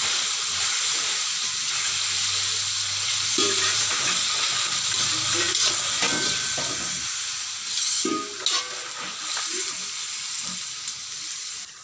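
Chicken pieces sizzling in hot oil in an iron kadai while a metal spoon stirs them, scraping against the pan again and again.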